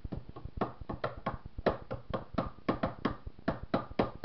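Hands beating out a steady rhythm of sharp taps, about four a second, as the beat for an unaccompanied song.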